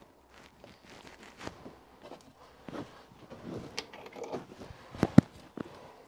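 Small metallic clicks and handling rustle as a bronze flange is fitted by hand onto a brass steam valve body and its nuts are run onto the studs with the fingers. Two sharp clicks about five seconds in are the loudest.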